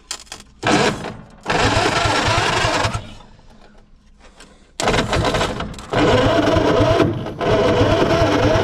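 Starter cranking the 1948 Diamond T pickup's flathead six in several bursts, then steadily from about six seconds in, as the engine is tried for a first start after sitting for decades.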